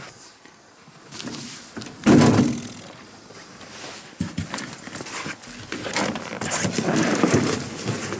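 Movement and handling noise of a person climbing onto a compact tractor: boots on snow and on the metal foot step, and clothing rubbing against the camera, loudest about two seconds in. The tractor's engine is not yet running.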